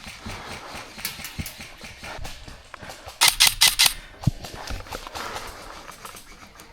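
Airsoft gun firing one rapid burst of about half a second, roughly three seconds in, amid fainter scattered clicks and knocks.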